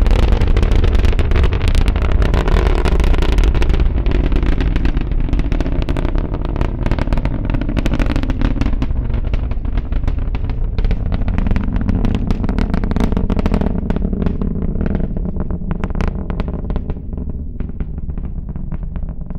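Falcon 9 rocket's first-stage engines heard from the ground during ascent: a deep, continuous rumble thick with crackling, slowly growing fainter as the rocket climbs away.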